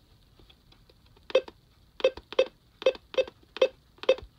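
Alert Works EAR-10 weather radio beeping at each button press as its setup menu is stepped through: about seven short beeps at uneven intervals, starting about a second and a half in.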